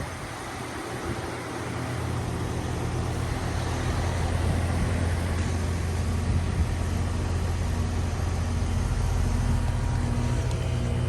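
Goodman GSZ14 heat pump outdoor unit running, a steady low hum that grows louder over the first few seconds.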